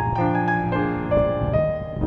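Slow background music: single sustained notes about two a second over a held low note.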